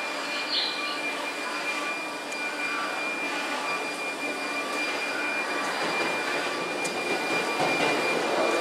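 Tokyo Metro 13000 series electric train approaching and running past on the rails, its running noise growing louder near the end as it comes close.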